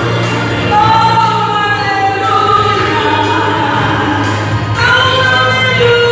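Gospel hymn sung with instrumental accompaniment: voices hold long, gliding melody notes over a steady bass.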